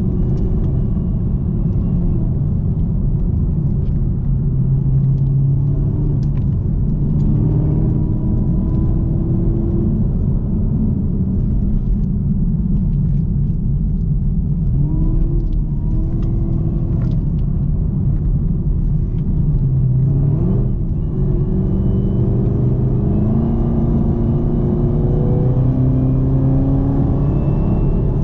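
2018 Camaro ZL1's supercharged V8 running under varying throttle, its note climbing slowly and dropping back several times as it pulls through the gears, with a faint high whine above the engine note.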